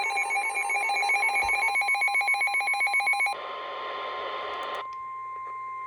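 NOAA weather radio going off for a severe thunderstorm warning: its rapid warbling alarm beeps over the steady 1050 Hz warning tone. A little over three seconds in the warble gives way to a burst of static, and then the warning tone carries on alone.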